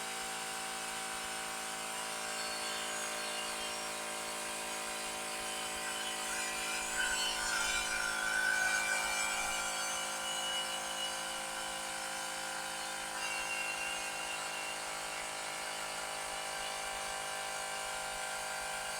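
Portable electric tyre inflator's small motor-driven pump running steadily, a bit noisy, pumping up a bicycle inner tube. It gets slightly louder for a couple of seconds partway through.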